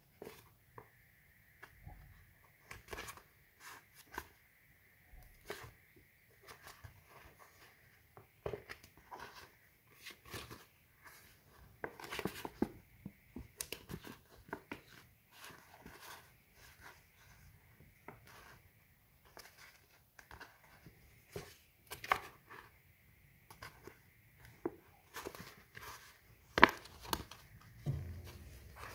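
Scored polypropylene sheet being folded by hand: irregular crackles, clicks and rustles as the plastic bends along its score lines, with one sharper snap near the end.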